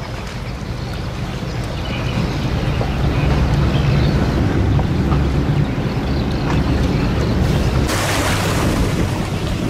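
Inboard engine of a small homemade motorboat running steadily on a test run, with the drone growing louder a few seconds in. A rushing hiss of wind or water noise comes in suddenly near the end.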